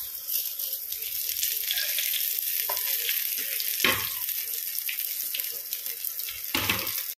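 Hot oil sizzling steadily in a stainless steel frying pan as semolina-coated stuffed capsicum slices shallow-fry. The metal spatula knocks against the pan about four seconds in and again near the end as the pieces are lifted out.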